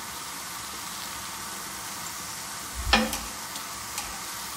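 Zolobiya dough deep-frying in hot canola oil in a pan, a steady sizzle. A single sharp knock about three seconds in and a lighter click about a second later.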